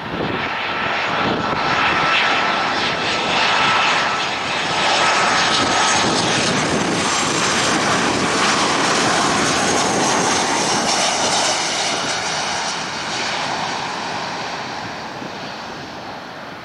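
Boeing 737-700's CFM56-7B jet engines on landing approach passing close by: a steady rushing jet noise with a high whine through the first few seconds, swelling in at the start and fading over the last few seconds as the plane reaches the runway.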